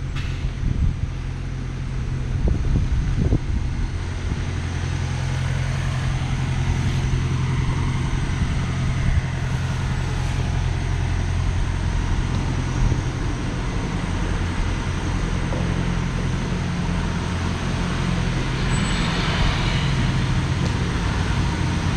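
Street traffic: a vehicle engine runs with a steady low hum, over a wash of road noise that swells briefly near the end.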